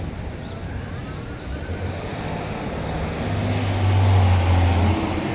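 Semi truck's diesel engine running on the street, a low steady hum that grows louder over the last couple of seconds as it comes closer.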